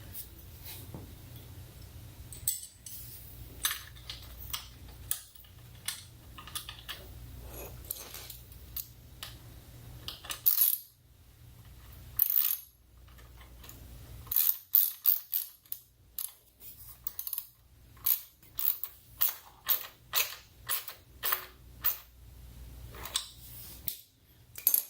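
Light metallic clicks and taps of hand work on a motorcycle as a relay and its fittings are handled and mounted, sparse at first and coming in quicker runs in the second half.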